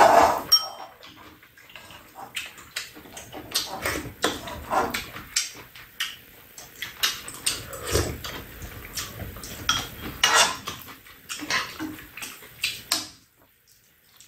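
Metal spoons clinking and scraping against a pan and bowls as two people eat, with chewing between the clinks; the clinks are short and irregular.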